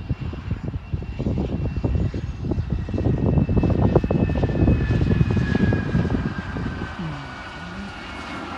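Jet airliner on the runway, its engines giving a heavy low rumble that builds for a few seconds and then eases off, over a high whine that slowly falls in pitch.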